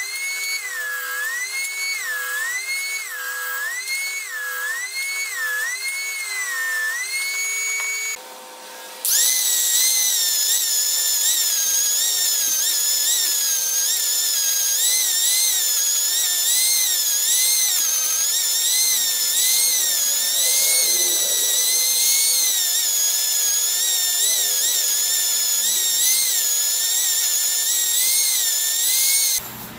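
A table saw cutting pine board, its whine dipping and recovering in pitch about once a second. After a short break about eight seconds in, an angle grinder with a sanding disc runs against wood with a high whine that wavers in pitch, stopping just before the end.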